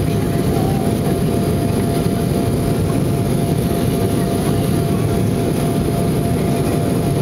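Cabin noise of an Embraer E175 jetliner climbing after takeoff: the steady rumble of its twin turbofan engines and airflow, with a thin steady tone above the rumble.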